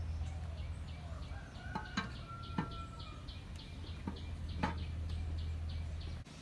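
A few light knocks as a lid is set on a clay urn oven, over birds calling and a faint chirping that repeats about four times a second. A steady low hum underneath cuts off suddenly near the end.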